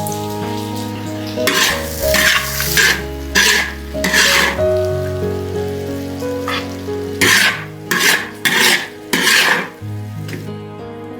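Wild mushrooms and cured pork sizzling as they are stir-fried in a pan, with a run of short sizzling stirring strokes in two clusters. Background music plays throughout, and the sizzle stops near the end.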